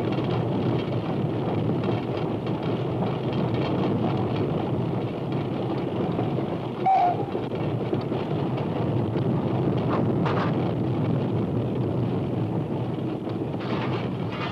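Train running at speed, a steady running noise of the train heard from inside the locomotive cab, with a brief higher tone about seven seconds in.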